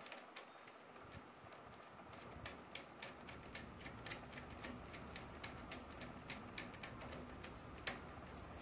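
Ratchet clicking in short strokes as it tightens the bolt on a battery's positive terminal, with faint, uneven clicks a few times a second.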